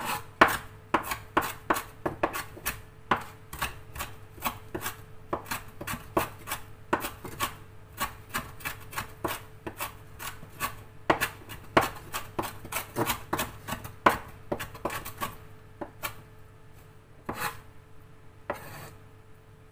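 A cleaver chopping fresh green herbs on a wooden cutting board: quick, sharp knocks about two or three a second, thinning to a few scattered strokes that stop a couple of seconds before the end.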